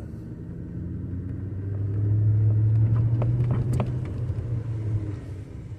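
2014 Audi RS5 backing slowly over a road crease, heard from inside the cabin: a low drone from the car that swells in the middle, with a few sharp knocks about three to four seconds in from the front-left suspension. It is the knock that the scope later traces to a worn sway bar end-link bushing.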